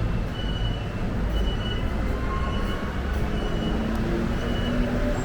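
Street traffic: a steady low rumble of passing vehicles, with a short high beep repeating about once a second.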